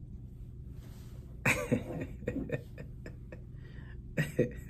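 A man laughing in short breathy bursts, the first and loudest about one and a half seconds in, sharp like a cough, with two more laughs near the end.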